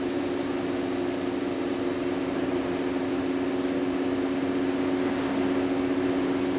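Road noise inside a car's cabin while cruising: a steady wash of tyre noise with a constant low hum. The left channel carries the noise before road-noise deadening work and the right channel after it.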